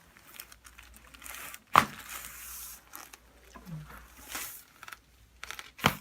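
Rustling on the treatment table as the patient shifts, with two sharp cracks about four seconds apart, the first one the louder. These are chiropractic adjustment pops of a spinal joint that the chiropractor calls locked up.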